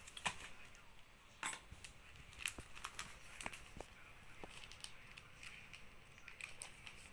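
Banknotes in clear plastic sleeves being handled: a scattered series of faint clicks and crinkles as the sleeves are lifted and set down on a desk pad.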